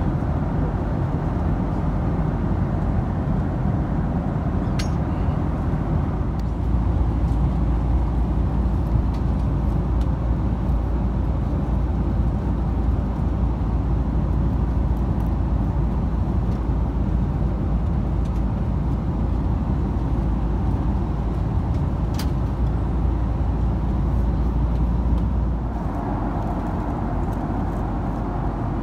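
Steady rumble of a Boeing 767-300's cabin noise: engines and airflow. The low rumble gets heavier about six seconds in and eases a few seconds before the end, with a couple of faint clicks.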